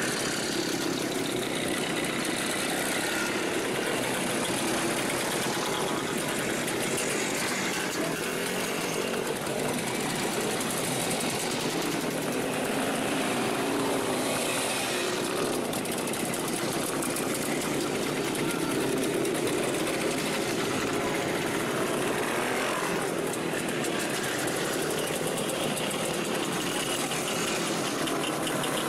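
A procession of old Jawa and ČZ motorcycles riding slowly past one after another, many small two-stroke engines running together in a steady, overlapping din.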